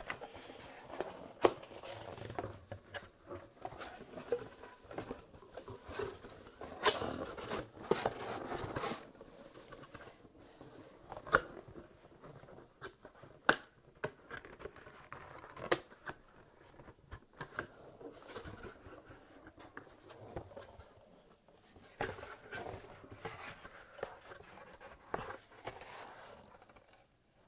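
Cardboard Loot Crate box being handled and folded by hand: irregular rustling and scraping of the cardboard, with a scatter of sharp taps and clicks as the flaps are bent and pushed into place.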